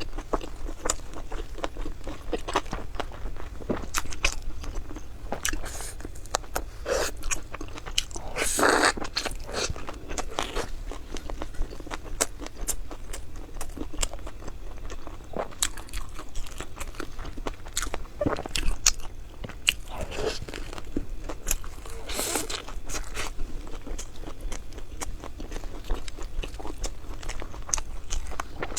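Close-miked eating: crunchy food being bitten and chewed, a steady run of small crunches and wet clicks with a few louder bites, the loudest about nine seconds in.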